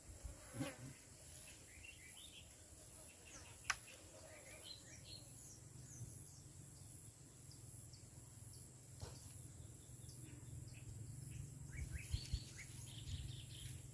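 Quiet outdoor ambience with scattered short bird chirps, one sharp click a little under four seconds in, and a faint steady high-pitched tone throughout.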